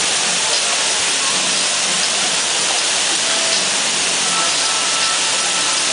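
Fountain's many water jets spraying up and falling back, a steady rushing hiss of water.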